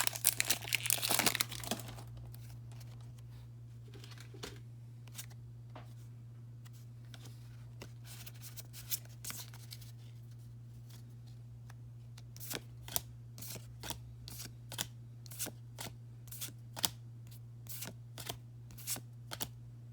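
Pokémon card booster-pack wrapper crinkling for the first couple of seconds, then trading cards being flicked through one by one, with sharp card flicks about twice a second in the second half. A steady low hum runs underneath.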